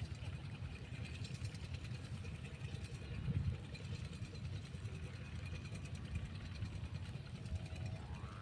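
Strong wind buffeting the microphone: a steady low rumble, with a faint rising whine near the end.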